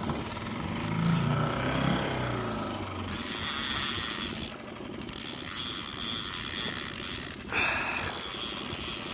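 Fishing reel ratcheting with rapid mechanical clicking as a hooked fish is fought and reeled in.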